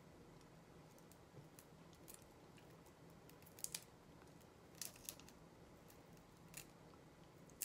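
Faint clicks and cracks of a live shrimp's shell being peeled apart by hand, a few sharp clicks spaced out over several seconds, the loudest a quick pair about three and a half seconds in.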